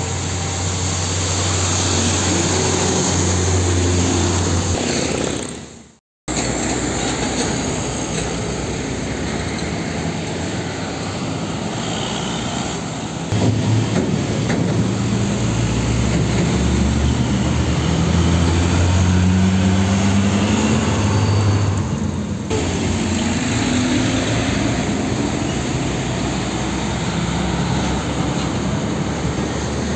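Heavy diesel trucks, dump trucks among them, driving past in traffic one after another: a deep engine drone over tyre and road noise, with the engine pitch climbing as one accelerates. The sound breaks off for a moment about six seconds in, and changes again about two-thirds of the way through.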